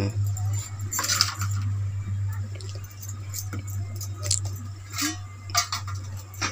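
Scattered light clinks and jingles of steel bowls being moved about on a concrete floor and of glass bangles on the wrists, over a steady low hum.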